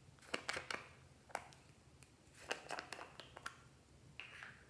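Small plastic slime containers clicking and tapping against each other as they are handled and their lids taken off, a string of sharp light clicks in two clusters with a soft scrape near the end.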